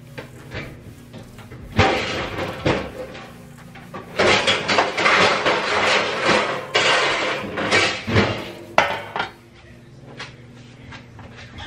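Metal pans and dishes clattering and knocking together as they are shuffled and handled, with a few sharp knocks about two seconds in and again near nine seconds.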